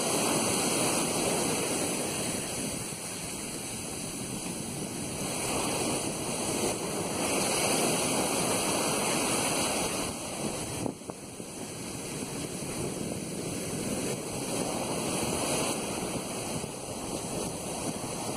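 Ocean surf breaking and washing up a sandy beach, swelling and easing every few seconds.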